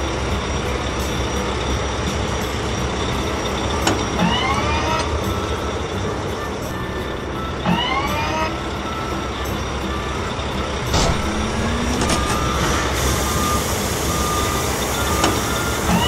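Animated wheel loader sound effects: an engine running steadily, with a rising whine about four seconds in and again about eight seconds in, and a few short reversing beeps around eleven to thirteen seconds in.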